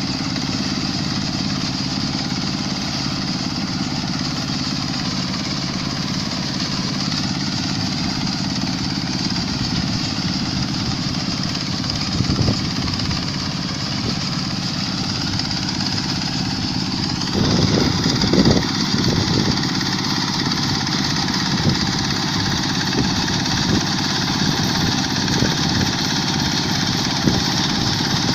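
Quick H-140R combine harvester's Kubota diesel engine running steadily. About two-thirds of the way through its sound changes and a short cluster of clattering knocks comes through, followed by a few scattered knocks.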